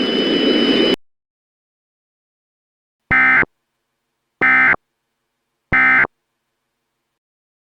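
Three short, identical EAS end-of-message data bursts (SAME digital header tones, a buzzy warbling chirp), evenly spaced about a second and a quarter apart, marking the end of the weather alert. Before them, a rushing static hiss with a faint steady whine cuts off about a second in.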